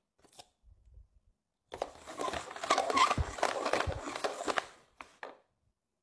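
Plastic cups being slid and shuffled across a tabletop: a rapid, irregular scraping and clattering for about three seconds, with a few light taps before and after.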